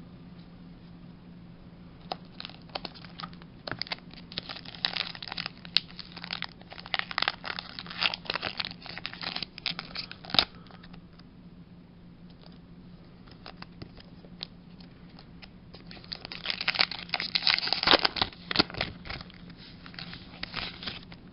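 Pokémon booster pack foil wrapper crinkling and being torn open, in two bouts of crackling with a sharp click about ten seconds in. A steady low hum sits underneath.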